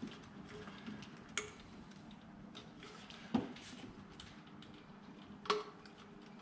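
Light clicks and clinks of parts and tools being handled on the engine's intake, with three sharper clicks about two seconds apart.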